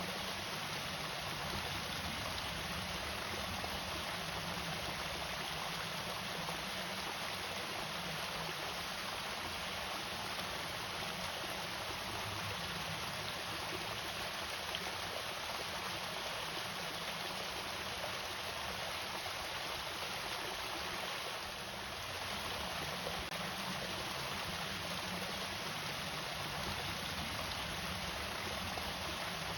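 Water pouring over a small irrigation waterfall, a steady, even rush.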